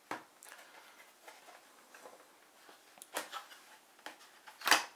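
A white cardboard phone box being handled on a wooden table. There is a light knock at the start as the phone is set down. A couple of scrapes follow about three seconds in, then a louder cardboard rustle near the end as the box's insert is pulled up.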